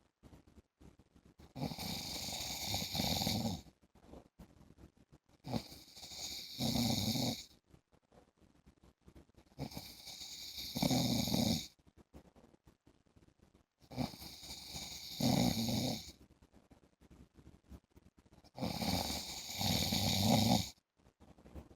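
A man snoring in his sleep, in a steady rhythm: about five loud snores, one every four seconds or so, each lasting about two seconds, with quiet breathing between them.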